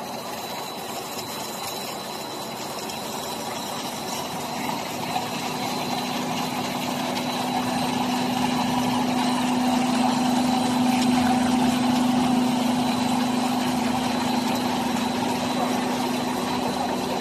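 Cheese-ball extrusion line machinery running: a steady hum of electric motors with a constant low tone and a faint high whine, louder toward the middle.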